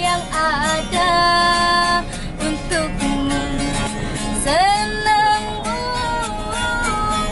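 A woman singing a melody with held notes and slides in pitch, to a strummed acoustic guitar.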